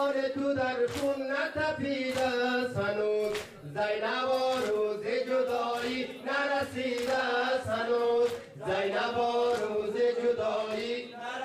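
Men chanting a Persian-language noha, a Muharram lament, with a lead voice and others joining in chorus. Regular sharp slaps of chest-beating (matam) mark the beat.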